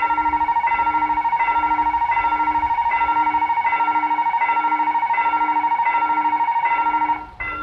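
Railroad crossing warning signal sounding: a bell-like chime repeats about every 0.7 s, with a loud, steady, warbling electronic alarm tone over it that cuts off shortly before the end. It warns that a train is approaching the crossing.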